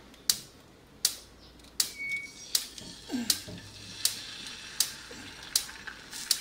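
Sharp, evenly spaced mechanical ticking, about four clicks every three seconds.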